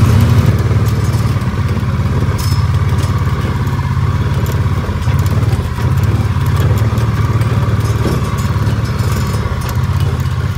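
Gator utility vehicle's engine running steadily as it drives, with a few light rattles.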